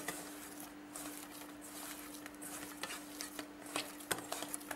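Hand kneading soft, oiled rice-flour dough in a stainless steel bowl: faint squishing with scattered light taps of fingers against the steel, over a steady low hum.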